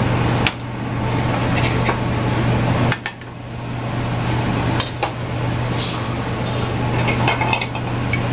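Metal sauté pans clattering on a restaurant gas range over a steady low hum, with scattered knocks and clinks. Near the end, shaved Brussels sprouts are tossed into a hot pan.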